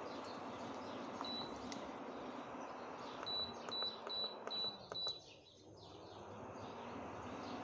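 Control-panel button beeps from an induction cooktop as it is set and switched off at the end of cooking: one short high beep about a second in, then five more in quick succession. A steady fan hum runs underneath and dips briefly after the last beep.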